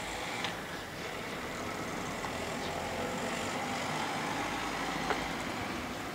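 Road vehicle passing along the street, a steady engine and tyre noise that swells toward the middle and eases off near the end, with a small click about five seconds in.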